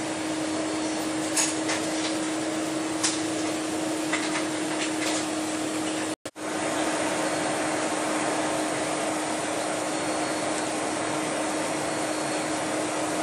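Steady jet airliner noise: an even whooshing rush with a constant low hum, with a few faint clicks in the first half. The sound drops out for an instant about six seconds in, then carries on unchanged.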